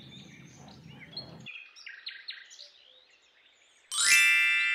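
Faint, scattered bird chirps, then after a moment of silence a loud, bright chime-like tone starts near the end and holds.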